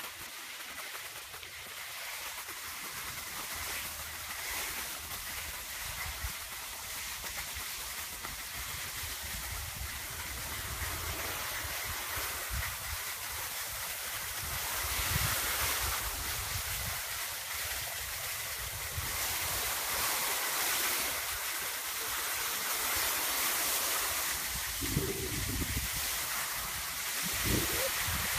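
Skis hissing and scraping over packed snow as the skier glides down, with wind buffeting the microphone in a low rumble. It grows gradually louder toward the end.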